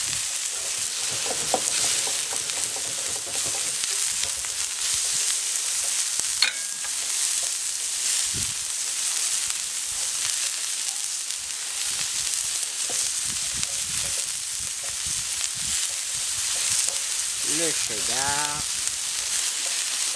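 Beef burger patties sizzling steadily on a hot steel gas plancha griddle, with one sharp click about six seconds in.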